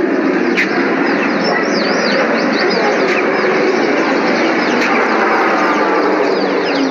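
A flock of small birds chirping, many quick overlapping chirps, over a steady background hum of noise.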